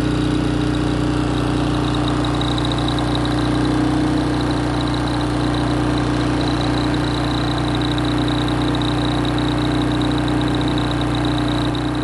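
Philking JF4200iE2R inverter generator running steadily under a welding machine's load, a low engine hum with a thin high whine on top that comes and goes.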